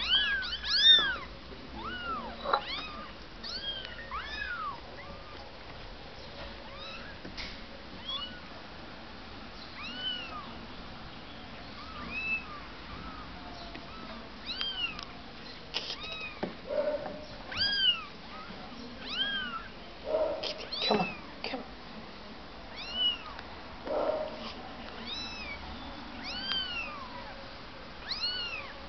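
Young kittens mewing over and over: short, high-pitched mews that each rise and fall, coming in scattered runs with brief pauses between.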